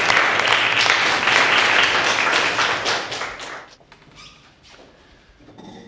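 A small group applauding, a dense patter of hand claps that dies away about three and a half seconds in.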